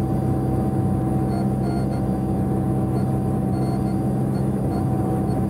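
Cessna P210's turbocharged six-cylinder engine and propeller droning steadily in the cabin on final approach, with the propeller set to high RPM.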